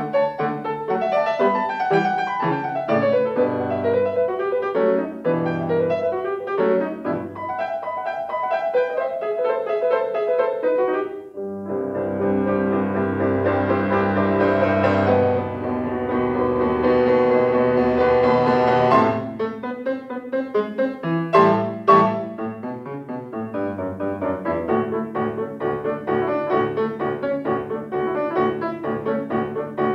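Solo grand piano played: quick runs of notes, then a dense, pedalled passage held from about 12 to 19 seconds in, followed by sharp, accented chords.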